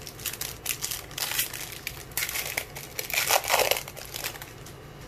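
The metallic plastic wrapper of a 2018 Topps Series 1 baseball card pack being torn open and crinkled by hand. The rustling comes in a string of crackles and is loudest a little past three seconds in.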